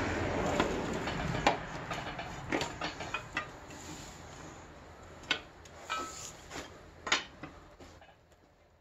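Seized Chevy small-block being turned over by hand with a breaker bar on the crank bolt. A rough scraping noise for the first second or so, then scattered metallic clicks and clunks as the crank moves. It is the sound of a stuck engine being worked free.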